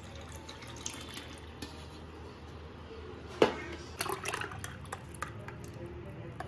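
Thick, frothy buttermilk drink poured from a steel vessel into a steel tumbler: a steady pouring splash, with a few sharp clicks around the middle.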